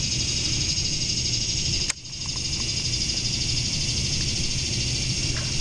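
Steady, high-pitched evening chorus of calling insects and frogs, with a single sharp click about two seconds in.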